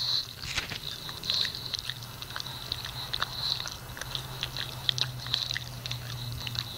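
A pug chewing sloppily: rapid, irregular wet smacking and clicking, with a louder smack roughly once a second, over a steady low hum.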